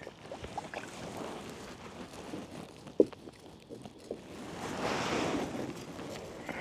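Water sloshing and small knocks around a kayak, with one sharp knock about three seconds in and a louder stretch of splashing about five seconds in.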